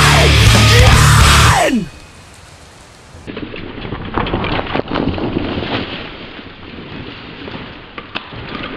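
Loud heavy-metal music that slides down in pitch and cuts off a couple of seconds in. After a short gap come the trail's own sounds: irregular crackling and small clicks of mountain-bike tyres running over dry leaves and twigs as a rider comes down the dirt trail.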